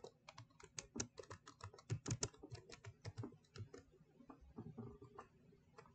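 Faint typing on a computer keyboard: a quick run of key clicks, thinning out after about two and a half seconds.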